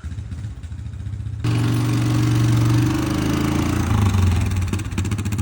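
A vehicle engine running close by, with a steady low hum. It gets markedly louder about a second and a half in.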